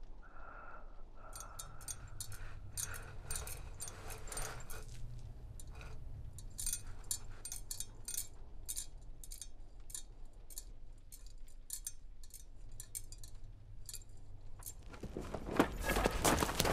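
Light metallic clinking and jingling, many small separate clinks, over a low steady rumble. About fifteen seconds in, a loud rushing noise swells up.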